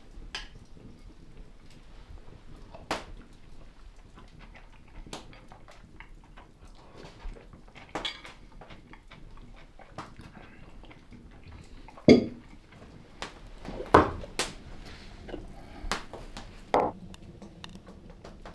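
Scattered clinks and knocks of cooking utensils against pots and dishes, with a few louder sharp knocks about twelve, fourteen and seventeen seconds in.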